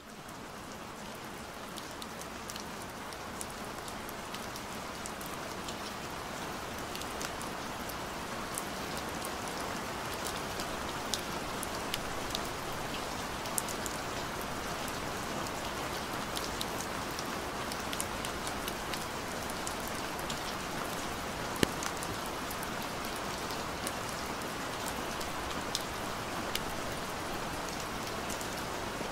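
Steady rain falling, with scattered sharper ticks of single drops.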